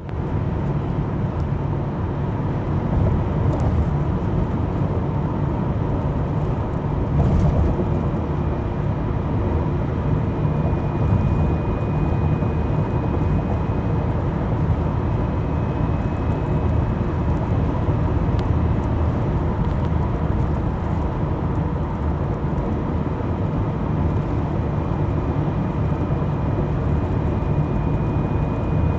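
Mitsubishi Zinger running with a steady low rumble, and a thin high whine that comes and goes from about eight seconds in. This is the abnormal noise (異音) the owner complains of, which the manufacturer says is normal.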